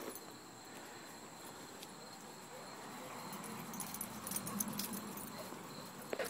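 Dogs moving about at play: faint scuffling of paws and light clinking of collar tags, with a cluster of sharp clicks about four to five seconds in.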